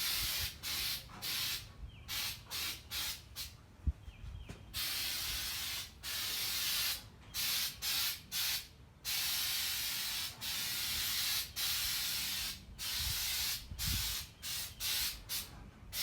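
Aerosol can of undercoating spraying: hissing in many short bursts and a few longer passes of one to two seconds, with wind buffeting the microphone.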